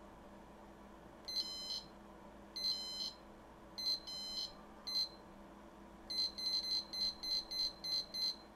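Lowrance LMS-525C DF fish finder's built-in beeper sounding high beeps: three alarm beeps about half a second each, one short beep, then a quick run of about eight short beeps, roughly three a second. The long beeps go with on-screen alarm warnings; the short run goes with the zoom-in key being pressed over and over.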